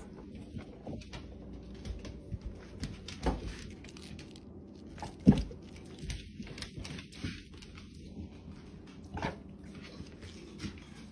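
Dogs eating Brussels sprouts and moving about on a wooden floor: scattered light clicks and crunches, with one louder knock about five seconds in.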